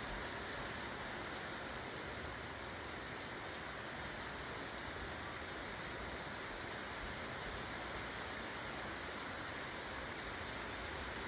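Steady rainfall, an even hiss of rain with faint scattered drop ticks.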